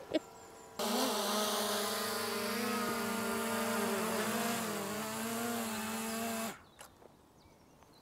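Small quadcopter drone (DJI Mini 3 Pro) with its propellers spinning while it is held in the hand: a steady high-pitched whirr that starts abruptly about a second in and cuts off suddenly near the end as the motors stop.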